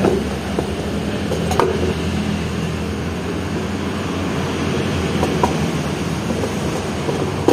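Steady mechanical hum from a running machine, like a fan or engine, with a few faint clicks as hands work the plastic air-filter box to pull the filter out.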